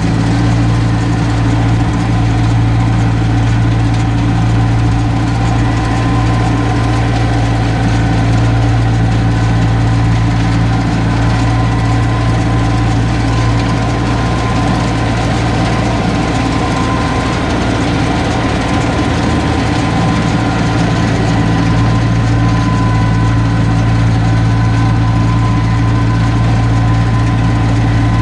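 Tractor engine running steadily under load while it tows and drives a round baler through the PTO shaft as the baler picks up grass for bailage.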